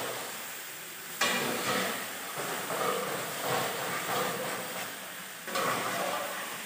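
Mutton and potato pieces sizzling in oil in a large aluminium kadai while a long-handled metal spatula stirs and scrapes them. The frying gets suddenly louder as they are turned about a second in and again near the end.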